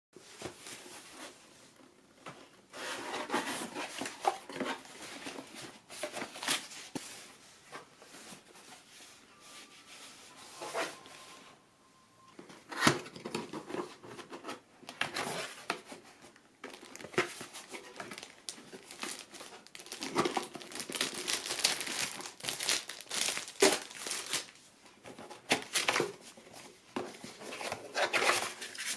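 Camera packaging being handled and opened: irregular crinkling and tearing of wrapping with occasional sharp clicks.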